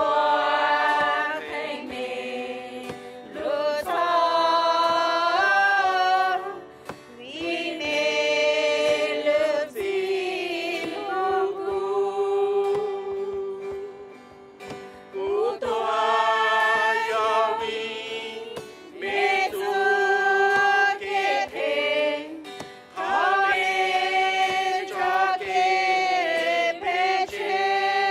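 Voices singing a worship song together, in phrases of a few seconds with long held notes and short breaks between them.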